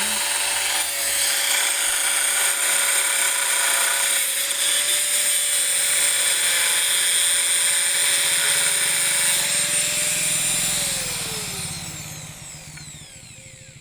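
Electric power tool motor running at a steady speed with a high whine. About eleven seconds in it is switched off and winds down, its pitch falling as it fades.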